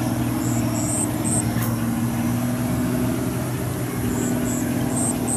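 Engine of a small tracked farm tractor running steadily at a constant pitch as it drives through a flooded rice paddy. Short high chirps come in pairs now and then, with a brief click about a second and a half in.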